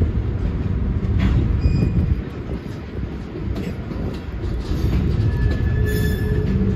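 Freight train of covered hopper cars rolling slowly past, steel wheels rumbling on the rails with a few brief thin wheel squeals, the clearest near the end.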